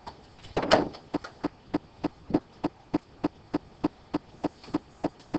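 A louder rustling scrape about half a second in, then steady, even tapping or clicking, about three taps a second.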